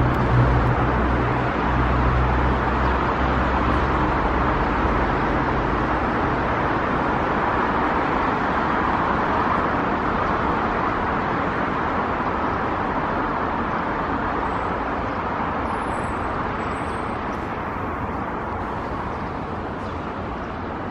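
Nankai 8300 series electric train running along the track, a steady rumble that slowly grows fainter, with a low hum underneath for the first six seconds.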